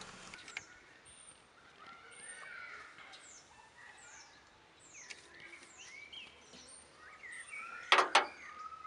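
Small birds chirping and singing in quick, high, downward-sweeping calls, over faint outdoor hiss. Near the end come two sharp clicks close together, as the engine oil dipstick is drawn out of its tube.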